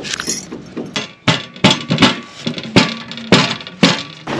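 Wooden pestle pounding down onto a steel plate, crushing ginger: a series of sharp knocks, about two a second, each with a brief metallic ring from the plate.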